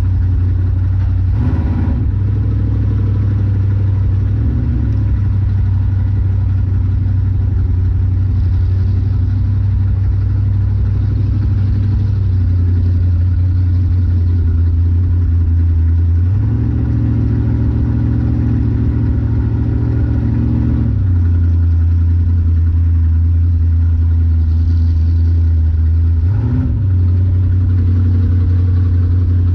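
Dodge Dart Sport's engine running as the car is driven slowly, heard from a camera on the hood: a steady low drone that gets louder for a few seconds in the middle, with a short rev blip near the end.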